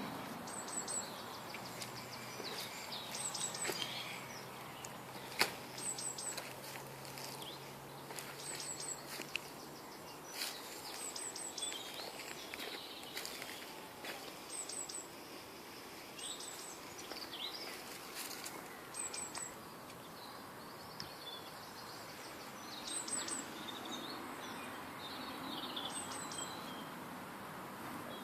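Wild songbirds singing outdoors: one bird repeats a short, high three-note call every two to three seconds while others chirp and warble at lower pitch.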